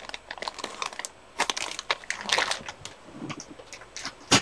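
Clear plastic bag around a chrome-plated plastic parts tree crinkling as it is handled and moved, with a single sharp knock near the end.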